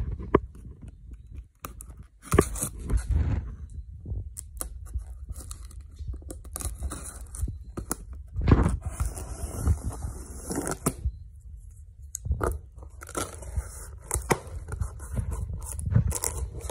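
Cardboard shipping box being opened by hand: packing tape tearing, with cardboard flaps and packing scraped and handled in irregular bursts and a few sharp knocks.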